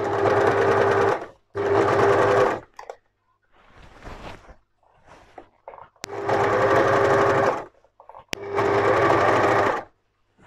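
An overlocker (serger) stitching in four short runs of a second or so each, stopping between them. This is the start-stop sewing used to take the seam around a corner: the machine is stopped with its needles in the fabric, the work is pivoted, and the presser foot is lowered again.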